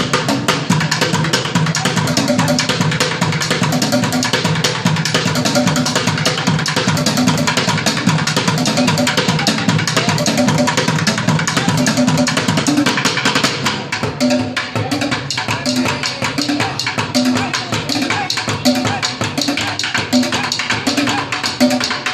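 Drummers playing a fast, dense percussion groove of rapid strikes. About two-thirds of the way in the playing eases slightly and a low pitched drum note starts repeating at an even pace under the rhythm.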